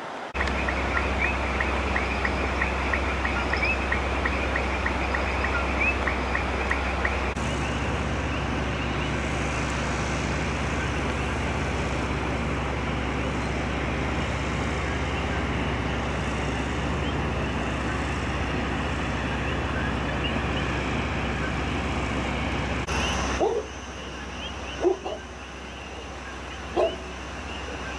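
Outdoor background: a steady low hum with fast, regular high-pitched chirping over it. The sound changes abruptly twice, and near the end two short louder calls stand out.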